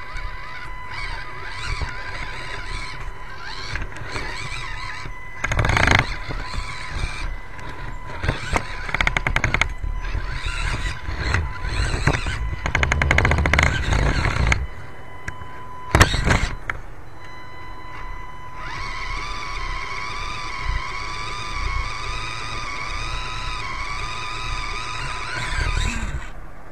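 Axial SCX24 micro RC crawler heard from its onboard camera as it climbs wooden planks: small electric motor and gear whine with clattering and scrabbling from the drivetrain and tyres on wood. The clatter comes in uneven bursts, with a run of rapid ticking in the middle, and a whine that wavers in pitch near the end.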